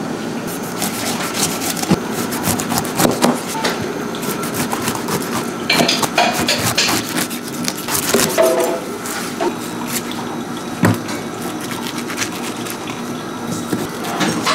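Kitchen utensils and dishes knocking and clinking: scattered irregular taps and clunks over a steady background hum.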